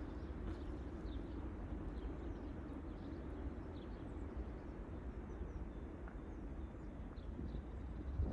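Footsteps crunching on packed snow over a steady low rumble, with faint short high chirps scattered through.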